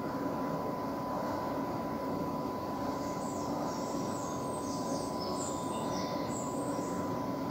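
Sewing machine running steadily, stitching a double-folded hem, with a thin steady whine over its running.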